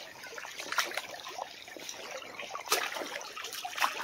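Shallow creek water trickling and rippling over a gravel bed, with a few short splashes.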